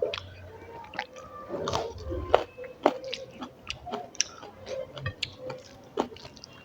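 Close-miked chewing of a mouthful of rice and fish curry: wet, irregular smacks and mouth clicks.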